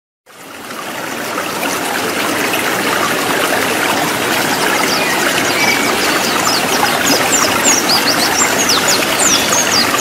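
Running stream water, fading in at the start. From about halfway, white-eyes (pleci) join in with a fast song of rapid, high, falling chirps.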